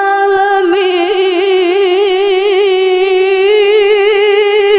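A boy's voice reciting the Quran in melodic tajweed style, holding one long drawn-out note. The note sits steady for a moment, then wavers in quick ornamental turns: the extended closing phrase of the recitation.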